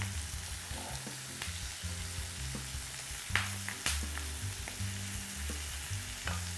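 A wooden spoon scooping thick onion barbecue sauce from a small enamel saucepan and scraping and tapping it onto buns, with two sharper knocks about three and a half seconds in. A steady sizzling hiss of frying runs underneath.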